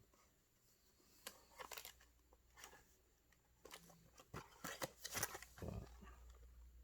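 Faint rustling and light taps of baseball trading cards and pack wrappers being handled and sorted, with a cluster of sharper handling noises about five seconds in.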